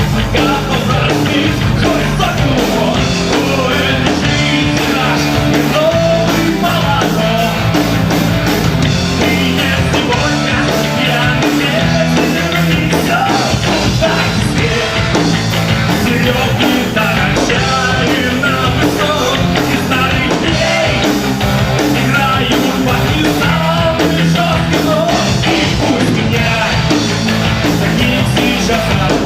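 A rock band playing live: loud, dense, continuous rock music with a steady drive and no breaks.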